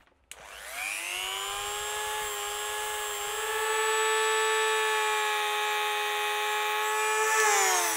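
Handheld Draper rotary multi-tool spinning up about a second in and running at a steady high whine while polishing small metal model-motor contacts. Its pitch starts to drop near the end as it winds down.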